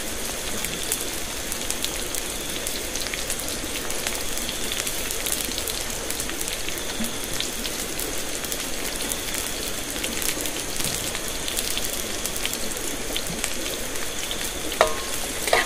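Steady rain pattering, a dense even hiss of fine drops. Near the end come two sharp clinks.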